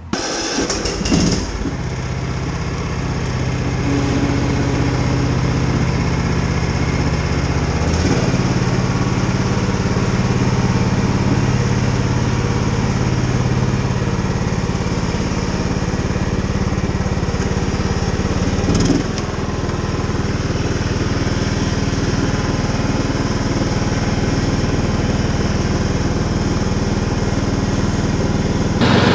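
John Deere L110 ride-on mower engine running steadily. Its note shifts about 8 seconds in and again briefly about 19 seconds in.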